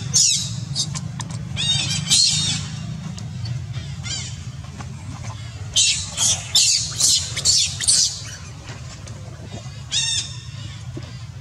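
Baby macaque screaming in shrill, repeated squeals, in bursts about a second in, around two seconds, a dense run from about six to eight seconds and once more near ten seconds. A steady low hum lies under the calls.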